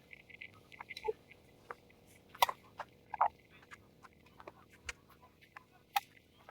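Tennis ball knocks: two sharp hits about two and a half and three seconds in, and a softer one near the end, over faint crackling.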